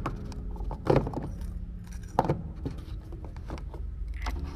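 Plastic filler caps on a Case IH Puma tractor's step-side tanks being handled: three sharp clicks and knocks about a second apart, over a low steady hum.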